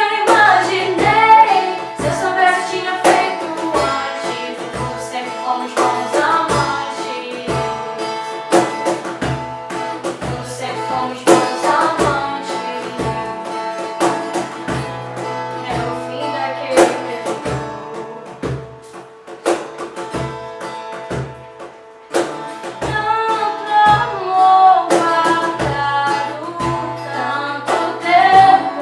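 Condor acoustic guitar strummed, with two women singing a sertanejo song in harmony, over a steady low beat from a hand-played cajon. The music drops briefly quieter about three-quarters of the way through, then comes back in.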